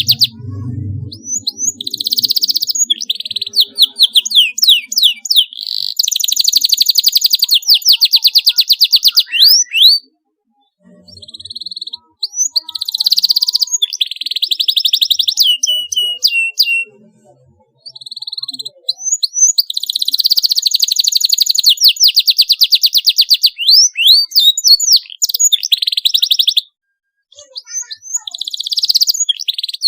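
Canary singing: fast rattling trills alternating with quick rising and falling whistled notes, broken by a few short pauses.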